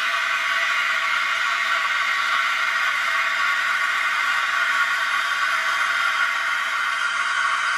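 Steam wand of a Starbucks Barista SIN006 espresso machine hissing steadily while frothing milk, forcing air and steam into it.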